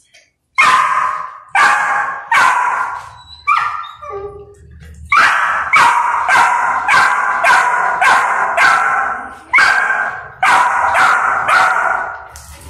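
Golden retriever puppy barking again and again at an adult dog: a run of a dozen or more sharp, high-pitched barks, one or two a second, with a short break about four seconds in.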